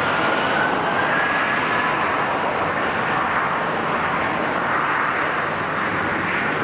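Jet airliner engines running: a steady rushing noise, with a faint whine that rises slightly in pitch over the first couple of seconds.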